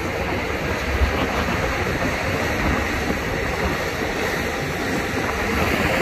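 Heavy diesel earthmoving machinery at work, giving a steady, even rumbling noise with no single strong stroke.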